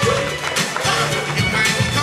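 Upbeat music with a beat, playing steadily.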